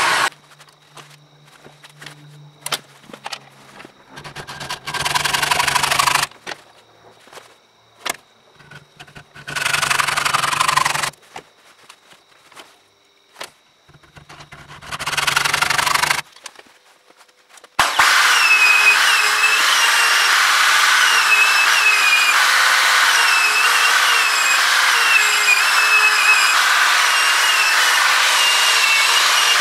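Three short spells of hand sawing, a hacksaw cutting a brass rod held in a vise, with quiet and small clicks between them. About two-thirds of the way in, a sanding disc spun by a drill press starts a steady run with a wooden knife handle pressed against it, with short squeaks recurring about once a second.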